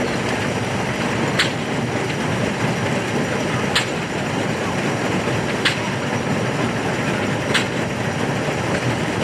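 Steam-powered antique sawmill machinery running with a steady mechanical noise, and a sharp click repeating about every two seconds.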